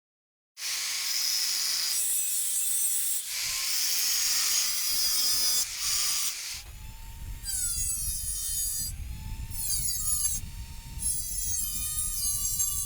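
Workshop tool scraping and rubbing against material, a harsh sawing- or rasping-like noise. About halfway through it changes: gliding, squealing pitches and a low rumble come in.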